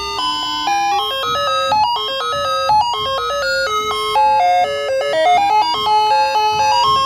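Electronic tune from a baby walker's toy play panel: a quick melody of single synthesized notes, changing pitch several times a second.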